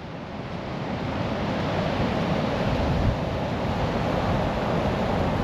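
Ocean surf washing onto the beach in a steady, even rush, with wind buffeting the microphone.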